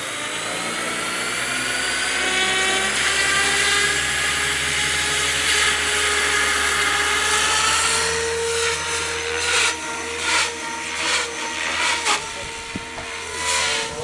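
Goblin 700 RC helicopter with a three-blade main rotor spooling up, its motor and gear whine rising in pitch over several seconds, then running at steady head speed as it lifts off. From about eight seconds in, a series of irregular sharp gusty bursts joins the steady whine.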